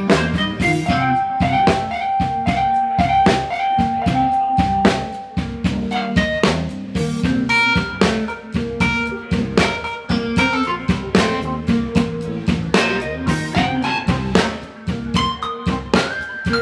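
Live band playing an instrumental passage: drum kit with steady snare and cymbal hits, electric guitar and electronic keyboard. One long note is held from about a second in for several seconds.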